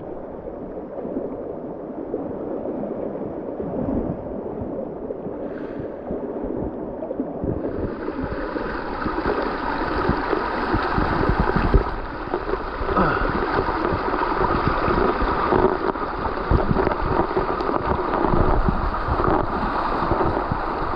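Shallow creek water rushing and gurgling over rocks close to the microphone, with frequent low bumps. Dull and muffled at first, the sound turns brighter and louder about seven seconds in.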